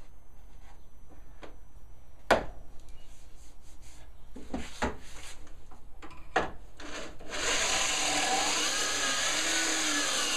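A few sharp knocks as a board is set in a Kreg pocket-hole jig, then about seven seconds in a corded drill runs for about three seconds, boring a pocket hole into the wood, its pitch wandering as the bit cuts.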